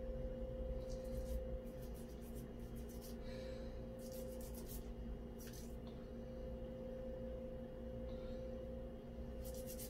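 Short scratchy rubbing strokes, a few of them in quick succession, as a metal fishing-reel part is scrubbed by hand to clear salt residue, over a steady low electrical hum.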